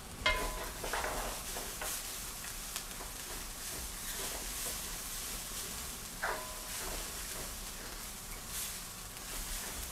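Onion, chilli, ginger and garlic frying gently in a wok as a spatula stirs and scrapes them round the pan. There are a few knocks of the spatula against the wok, each ringing briefly: several in the first two seconds and another about six seconds in.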